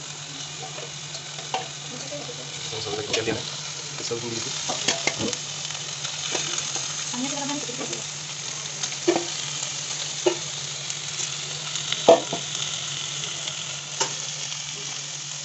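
Raw pork pieces sizzling in a dry nonstick karahi with no oil, a steady hiss with scattered pops and crackles.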